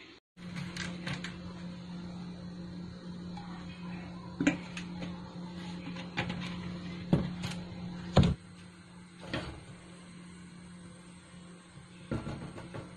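Kitchen clatter: several sharp knocks and taps over a steady low hum. The hum stops about eight seconds in, at the loudest knock.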